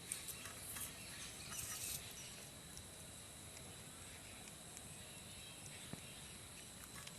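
Quiet outdoor background with a few faint rustles and small clicks, and a brief hissy rustle a couple of seconds in.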